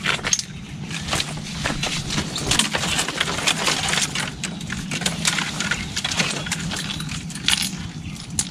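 Irregular splashing and clicking as hands work through shallow marsh water and mud gathering snails, over a steady low hum.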